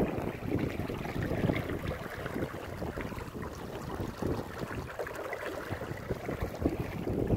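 Steady rush of water along a sailboat's hull, with uneven low rumbles of wind on the microphone.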